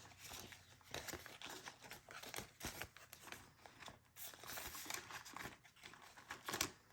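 Faint rustling and crinkling of paper banknotes being handled and sorted by hand, with irregular small crackles throughout.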